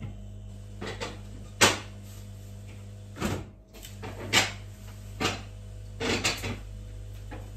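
Kitchen cupboard doors and drawers being opened and shut, heard as a series of short knocks and clatters, the loudest about one and a half seconds in, over a steady low hum.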